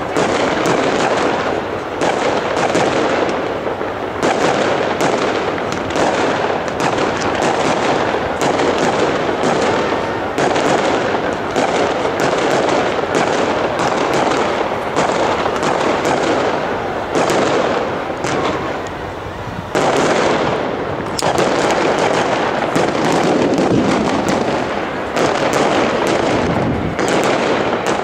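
Fireworks display: a loud, dense barrage of aerial shell bursts and crackle, many bangs a second, with a brief lull about two-thirds of the way through.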